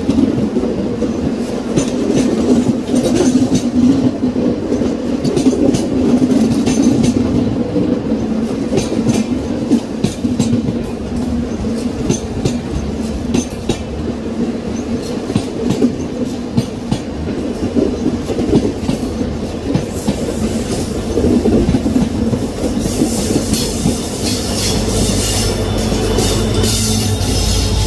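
Passenger coaches of a train passing close by on the next track, wheels clattering steadily over rail joints. In the last few seconds the train's WDG-4 diesel locomotives come past, and a low steady engine drone and a high hiss join the rail noise.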